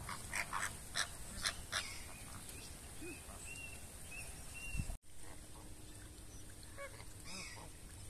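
Flock of greater flamingos honking: a quick run of short, goose-like calls in the first two seconds, then fainter scattered calls. A small bird gives a few thin, high whistles a few seconds in, and the sound cuts out for an instant about five seconds in.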